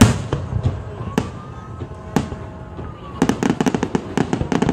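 Aerial fireworks shells bursting close by: a loud bang at the start, single booms about a second apart, then a rapid string of sharp crackling reports near the end.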